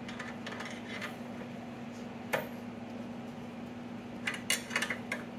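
Metal clinks and clicks of a wrench on an engine mounting bolt as a nylock nut is tightened down, with a sharp click about two seconds in and a quick run of clicks near the end, over a steady background hum.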